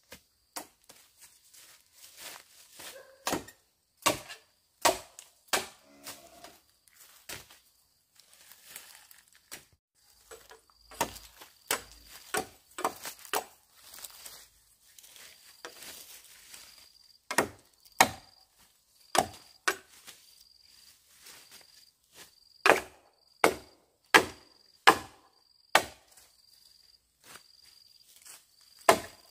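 A blade chopping into wood, with sharp, irregular strokes in groups, some less than a second apart and the heaviest in the second half. An insect chirps faintly in a steady, pulsing way underneath.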